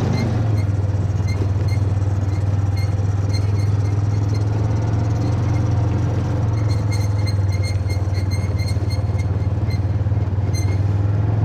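A vehicle running steadily, a constant low hum with road and running noise, and scattered light clicks or rattles.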